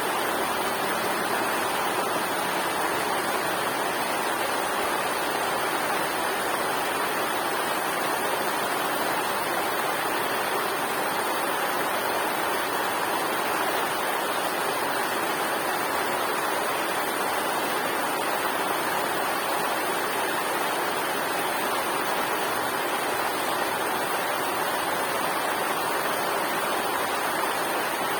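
River water rushing and splashing over rocks in a steady, unbroken stream of noise.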